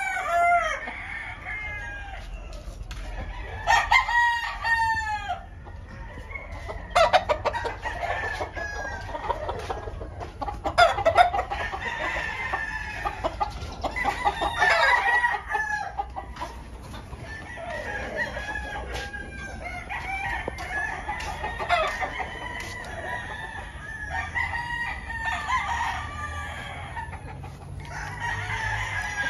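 Many roosters crowing again and again, their calls overlapping one another, with clucking in between.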